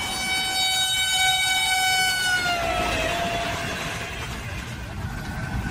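A passing train's locomotive horn sounds a long blast that drops in pitch about two and a half seconds in as it goes by, then fades, over the steady rumble of the train running at speed. Another horn blast begins right at the end.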